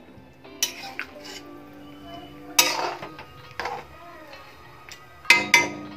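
Metal spatula stirring a pot of fish curry, knocking and scraping against the pot in about six sharp clatters, the loudest about two and a half seconds in and two close together near the end. Faint background music underneath.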